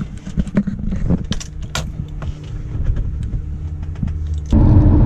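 Diesel van engine idling, heard from inside the cab, with the keys hanging from the ignition jangling and clicking. About four and a half seconds in it cuts to the much louder engine and road noise of the van driving on the motorway.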